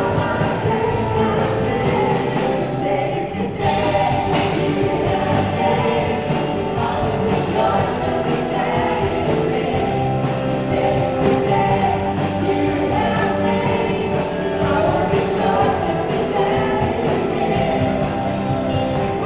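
A live worship band and group of singers performing a contemporary praise song: several voices singing together over drums, electric guitar and keyboard, with a short break in the texture about three seconds in.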